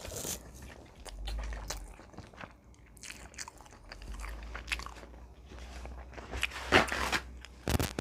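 Close-up mouth sounds of someone eating: biting and chewing with scattered crunchy, crackly clicks. Louder crunches come about seven seconds in and again just before the end.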